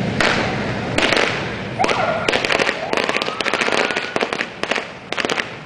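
Firecrackers going off: a couple of single sharp bangs, then a rapid string of cracking pops for about three seconds. Under the pops, a tone rises in pitch.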